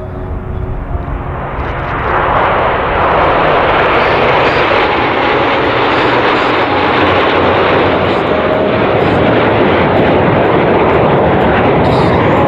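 Nine Canadair CT-114 Tutor jets, each with a single turbojet, flying past in close formation: their jet noise builds over the first two seconds into a loud, steady rush that holds to the end.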